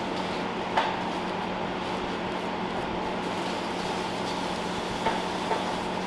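Steady hum of a kitchen ventilation fan, with a few light knocks: one about a second in and two close together near the end.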